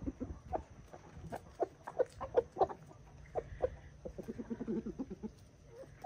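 A flock of chickens clucking softly as they peck at feed: short, separate clucks every fraction of a second, with a quicker run of low clucks about four seconds in.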